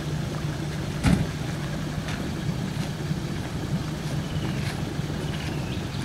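Four-wheel-drive engine idling steadily, with a single sharp knock about a second in.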